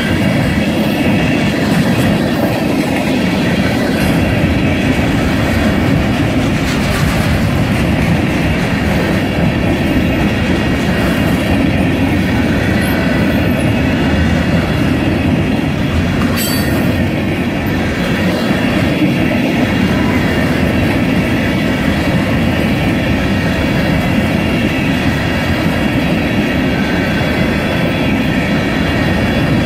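Freight train of covered hopper cars rolling past at close range: a loud, steady rumble with wheels clattering over the rail joints, and one brief sharp high-pitched noise about halfway through.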